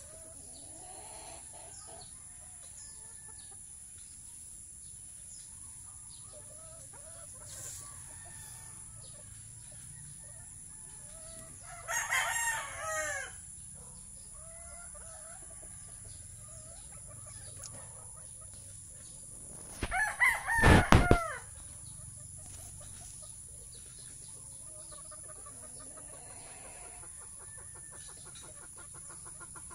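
Chickens clucking softly with a rooster crowing twice, about twelve seconds in and again about twenty seconds in; the second crow comes with a thump on the microphone.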